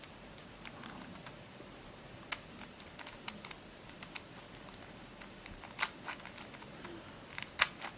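Plastic pieces of a Witeden 2x2x3 Camouflage II shape-shifting twisty puzzle clicking irregularly as its layers are turned to test how the small pieces corner-cut, with a few sharper clacks, the loudest near the end.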